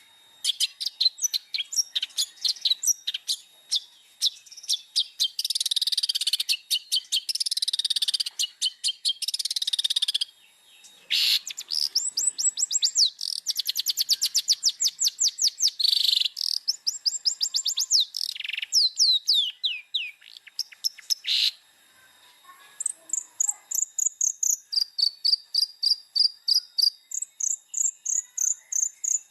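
Long-tailed shrike (cendet) singing nonstop in a fast, high-pitched chatter of rapid repeated notes and trills. Harsh scratchy phrases come in the first third, and later come runs of notes that step downward in pitch, repeated.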